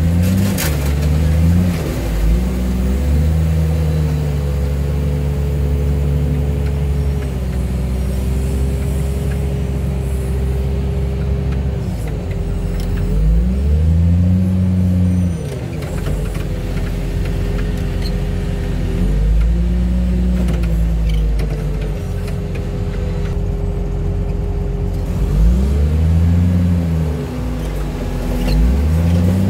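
Diesel engine of a machine working a hydraulic boom and grapple, running hard and revving up and falling back several times as the boom lifts and moves crushed car bodies.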